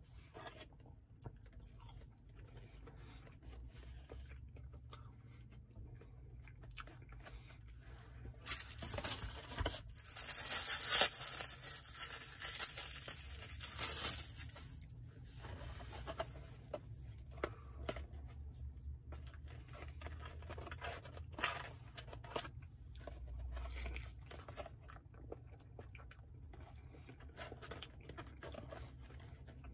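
A packaged plastic spoon's plastic wrapper being torn open and crinkled for about six seconds near the middle, the loudest sound. Around it, quiet chewing and small clicks.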